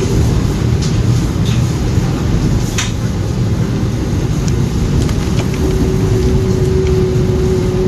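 Argo Cheribon passenger train running along the track, heard from inside the carriage as a steady low rumble. A sharp click comes about three seconds in, and a thin steady tone joins in over the last two seconds.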